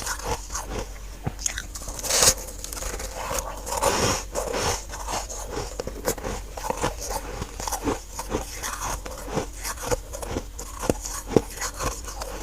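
Someone biting and chewing chunks of freezer frost close to the microphone: a run of sharp, irregular crunches and squeaky, powdery crackles, several a second, with a louder bite about two seconds in.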